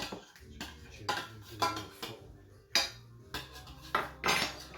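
A utensil clinking and scraping against the pot in irregular strokes, about one every half second with a longer scrape near the end, as whipping cream is stirred into the cooked avocado sauce.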